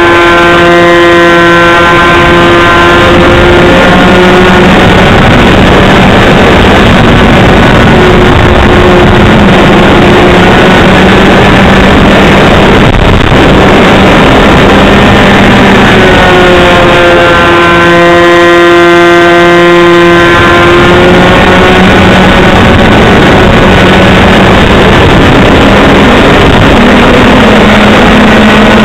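Small model-airplane engine running loud and close, with rushing wind noise over the onboard microphone. The engine's pitch shifts up and down as the plane manoeuvres, standing out most clearly about two-thirds of the way in.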